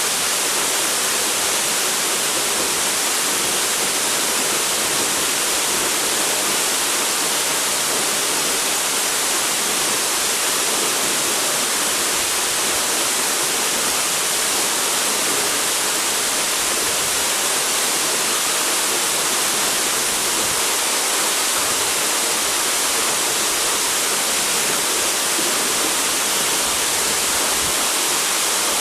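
Waterfall pouring, a steady, even rush of falling water with no change.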